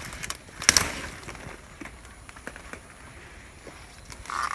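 Dry leaf litter and taro stems rustling and crackling as a hand grips black taro runners, with one sharp crackle under a second in and a few lighter clicks after it. A short call is heard near the end.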